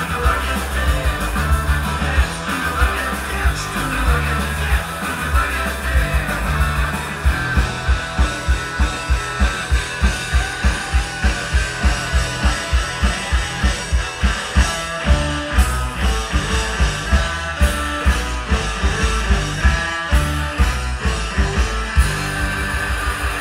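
Live rock band playing loud: electric guitars, bass and drums, with singing in the first few seconds. About a third of the way in, the drums and bass lock into a fast, even pounding beat, which gives way to fuller, denser playing near the end.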